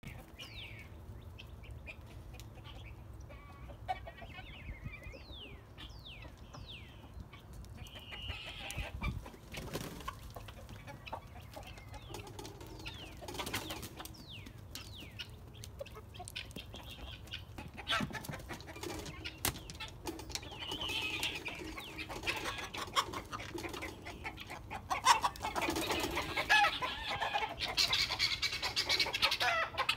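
A flock of chickens, hens and roosters, calling in alarm as a dog chases them. Thin falling chirps come in the first several seconds, and the calls grow louder and denser in the last few seconds.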